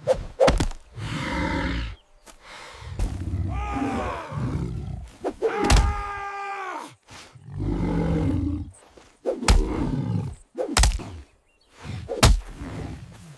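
A string of animal growls and roars, each a second or two long with short pauses between, broken by several sharp knocks. One pitched, wavering call stands out near the middle.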